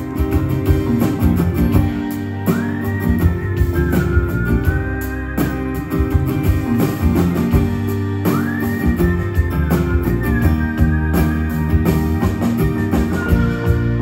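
Live band playing an indie-rock song, heard through the PA: guitars, drums and keyboard, with a high melody line that slides up into long held notes twice.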